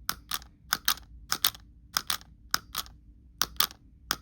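Hard plastic jaw of a Dunkleosteus action figure chomping again and again as the button on its back is pressed, seven chomps each heard as a quick double click.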